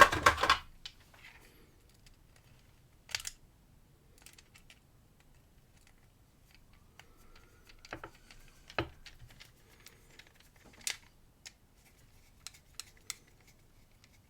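Small metal clicks and clinks of a screwdriver and padlock parts being handled on a work surface, with a short louder clatter at the start and scattered single clicks after.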